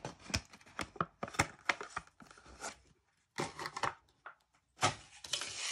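Stiff clear plastic blister pack being pried open by hand: a run of sharp plastic clicks and crackles, then after a short pause a few longer crinkling rustles as the card is worked out.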